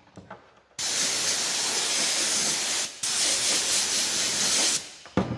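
Air-powered spray gun with a glue canister hissing as it sprays adhesive onto the backrest fabric, in two long bursts with a short break between them. A couple of sharp knocks follow near the end.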